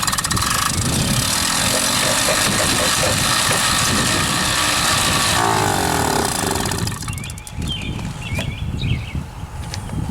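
Motobecane moped's small two-stroke engine starting up for the first time after reassembly and running loud for about five seconds. About five and a half seconds in, it drops in pitch and level and carries on more quietly.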